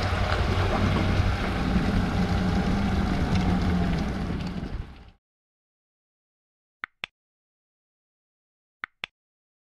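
Tow vehicle's engine hum and the rumble of a boat trailer rolling up a concrete ramp out of the water, cut off suddenly about five seconds in. Then two quick double mouse-click sound effects about two seconds apart.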